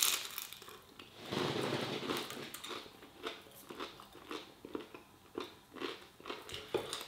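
Close-up crunching and chewing of a crispy fried vegetable spring roll: crackly crunches in the first couple of seconds, then steady open-mouthed chewing, about two chews a second.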